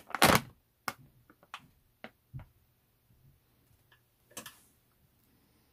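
Plastic ready-rice pouch crinkling as gloved hands work a block of colonised spawn out of it. Loudest at the very start, then scattered light clicks and rustles, with another short rustle about four seconds in.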